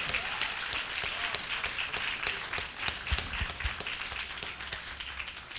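A congregation applauding, many hands clapping together, dying away toward the end.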